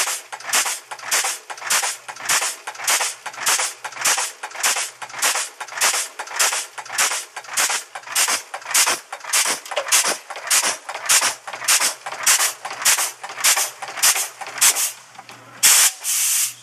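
An Ayase Seiki Model AS two-die, three-blow cold header running in production, its ram striking in a fast, even rhythm of sharp metallic strokes, roughly two to three a second, over a low hum. Near the end there is a longer, louder burst of noise.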